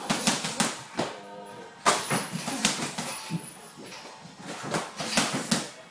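Irregular slaps and thuds of gloved punches, kicks and footwork on the ring canvas during light kickboxing sparring: a dozen or so sharp hits spread unevenly, the loudest about two seconds in.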